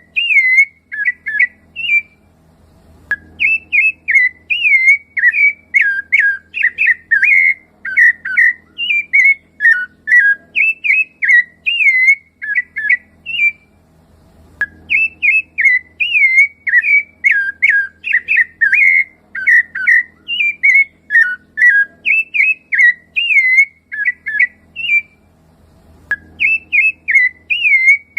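Rufous-bellied thrush (sabiá-laranjeira) singing: fast runs of short fluty whistled notes, broken by brief pauses three times.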